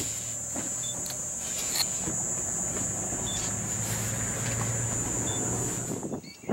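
Safari vehicle running steadily, a low even hum with a steady high-pitched tone over it. Both cut off about six seconds in.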